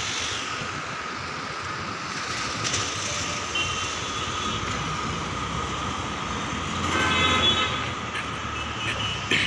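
Steady town traffic noise from the street below, swelling louder about seven seconds in as a vehicle passes.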